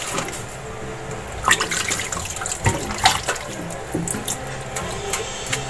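Water running and splashing, with scattered clicks and knocks of kitchen things being handled.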